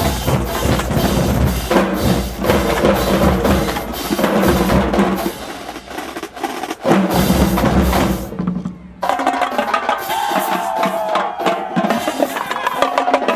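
Marching band drumline playing a cadence: snare and tenor drums over pitched bass drums. About eight seconds in the drumming breaks off briefly, then picks back up with sharper, lighter strokes and almost no bass drum.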